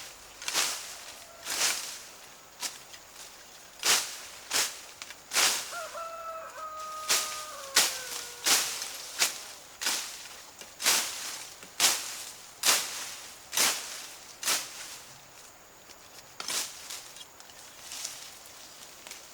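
A rooster crows once, a drawn-out call that falls in pitch, about six seconds in. Under and around it runs a regular series of sharp crunching strokes, roughly one a second, louder than the crow.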